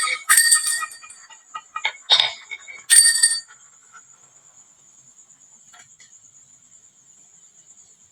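Marbles clattering and clicking on a wooden marble-run slope: a few quick rattles in the first three and a half seconds, then only a couple of faint ticks over a faint, steady high whine.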